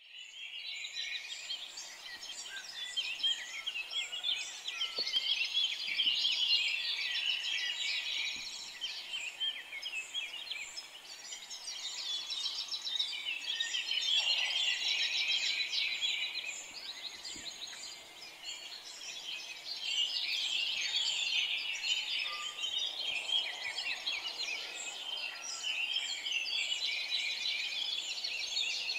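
Many small birds chirping and twittering together in a dense chorus, swelling and fading in waves every several seconds.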